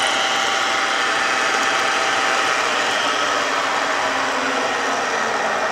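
Milling machine running as a high-speed steel cutter mills a helical groove dry in a 1.5-inch brass shaft under power table feed: a steady machine sound with many held tones.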